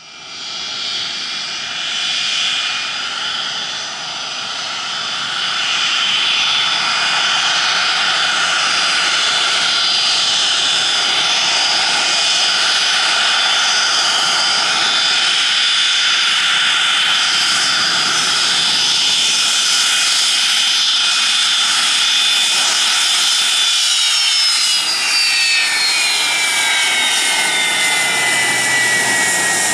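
McDonnell Douglas MD-82's rear-mounted Pratt & Whitney JT8D turbofans running on the ground: a loud steady jet rush with a whine of several high tones. The sound fades in over the first few seconds. About three-quarters of the way through, the whine tones begin gliding down in pitch.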